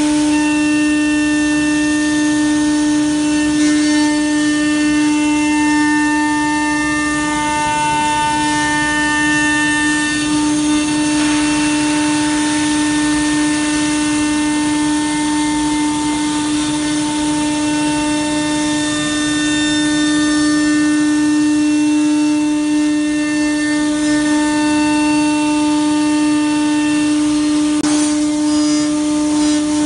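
A PADE six-axis CNC router cutting wood. The spindle whines at one steady pitch, with the hiss of the cutter milling out a hollow in a wooden chair part beneath it.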